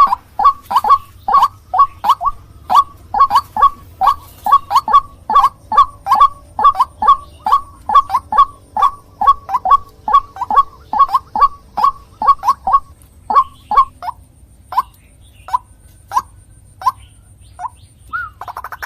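White-breasted waterhen (ruak-ruak) calling: a rapid string of short, loud notes, about three a second, that thins out to single calls about a second apart in the last few seconds. The call is used as a lure for the bird.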